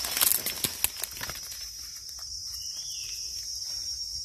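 Dry leaf litter crackling underfoot as someone steps and crouches in the first second or so, over a steady high drone of forest insects. A short bird call comes about three seconds in.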